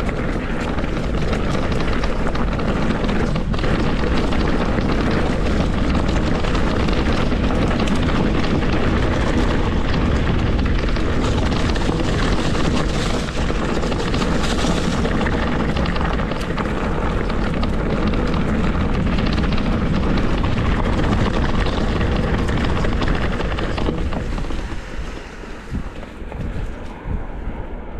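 Wind rushing over the microphone and tyres rumbling on the trail while a mountain bike rides at speed, a steady dense roar. Near the end the noise drops and becomes uneven.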